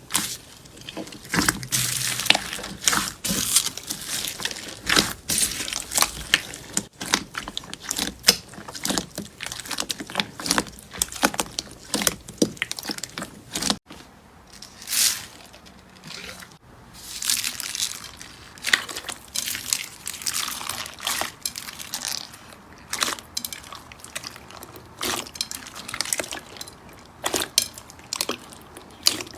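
Hands squishing and stretching slime: a dense, irregular run of wet clicks, pops and crackles, with a brief break about halfway.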